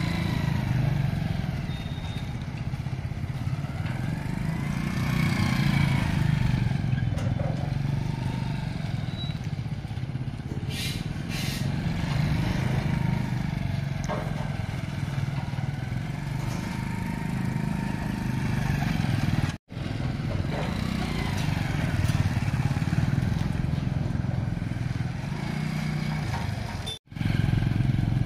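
Motorcycle engine running on the road, its pitch rising and falling with speed. The sound cuts out briefly twice.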